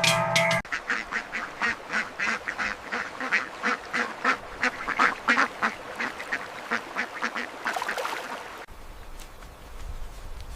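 Ducks quacking in a quick, steady run of calls, about three or four a second, that stops abruptly near the end, leaving quieter outdoor ambience with a low rumble. Music plays briefly at the start.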